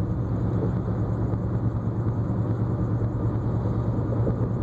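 Car running with a steady low engine drone and noise.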